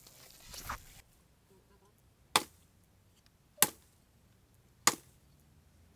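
Three sharp chopping strikes, evenly spaced about a second and a quarter apart, beginning a little after two seconds in.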